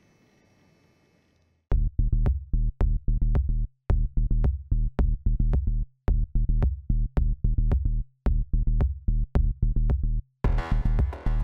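Faint low hum for about a second and a half, then electronic background music with a heavy, steady drum-machine beat and synth bass starts.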